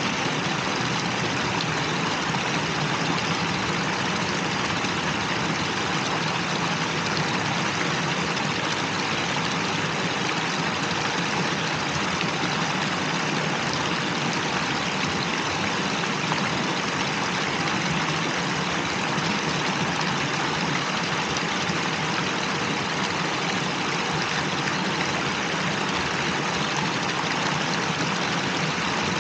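Steady rushing and splashing of water running down a stepped cascade fountain.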